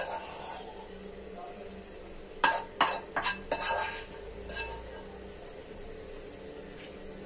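Spatula knocking and scraping against a metal kadhai and cake tin as a thick sesame-seed sweet mixture is scraped out and pressed into the tin. A quick run of about five sharp knocks comes about halfway through, with quieter scraping around it.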